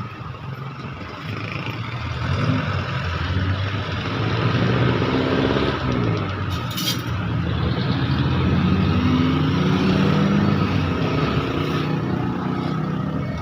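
A motor running, its pitch drifting up and down, with a short high hiss about six and a half seconds in.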